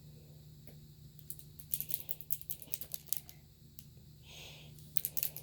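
Handling noise from a camera carry case: a quick run of light clicks and taps in two bursts, the first starting about a second in and the second near the end.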